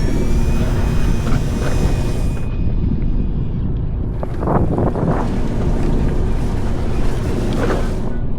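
Wind buffeting the microphone over the steady low running of a fishing boat at sea, with a thin high whine that rises slightly in pitch during the first couple of seconds.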